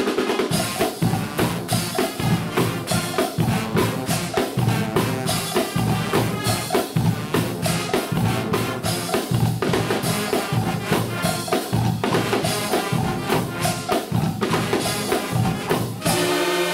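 Guggenmusik band playing a drum-led passage: drum kits, snare and bass drums drive a fast beat. About sixteen seconds in, the brass section comes back in on a loud held chord.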